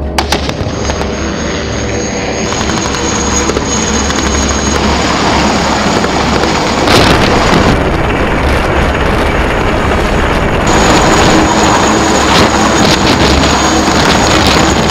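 Military transport helicopter, a Romanian IAR 330 Puma, flying low and close: loud, steady rotor and turbine noise. A high turbine whine fades out in the middle and returns later.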